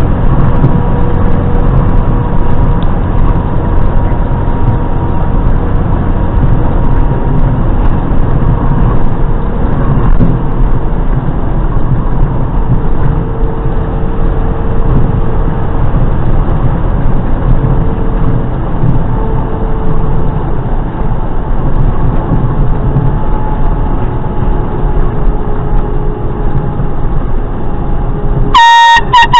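Steady, loud vehicle running and road noise. Near the end comes a short, loud, high-pitched blast from a canned air horn.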